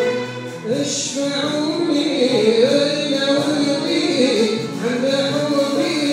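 Live symphony orchestra playing, with a solo voice singing a melody over it from about a second in.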